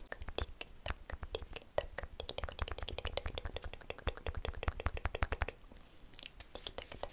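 Fingernails tapping rapidly on a small plastic tube held close to the microphone: quick crisp taps, several a second, which stop about five and a half seconds in, leaving a few scattered clicks.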